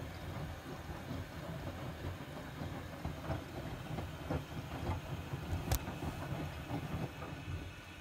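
Miele W2241 front-loading washing machine in its wash phase: the drum turns and tumbles the wet laundry with an uneven rumble and scattered knocks, one sharp knock about six seconds in. The drum stops near the end, the usual pause before it turns the other way.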